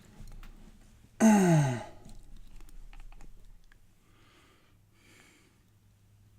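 A person's drawn-out sigh whose pitch falls, about a second in, followed by faint scattered ticks of small metal lock parts being handled and a couple of soft breaths.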